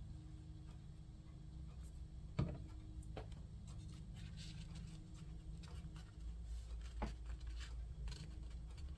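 Faint rustling and tapping of paper pieces being handled and pressed onto a paper plate, with a sharper tap about two and a half seconds in and another about seven seconds in, over a steady low hum.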